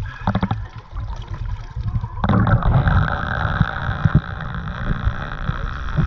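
Seawater splashing and sloshing around a boat's hull and ladder as a snorkeler climbs out of the water. About two seconds in, a steady, louder rushing noise starts suddenly.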